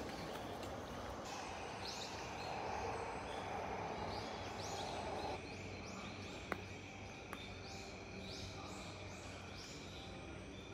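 Forest birds and insects calling: a short rising call repeats about twice a second, and a steady high drone joins about halfway through. Under it a rushing noise cuts off suddenly about five seconds in, and there is a single sharp click soon after.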